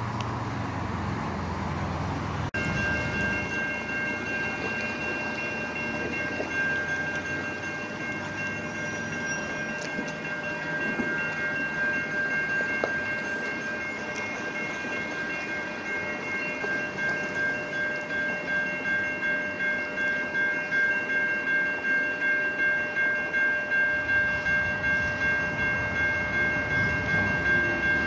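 Railway level-crossing warning bell ringing in a steady rhythm of about two strokes a second as a train approaches. It starts abruptly about two and a half seconds in, and a low train rumble rises underneath it near the end.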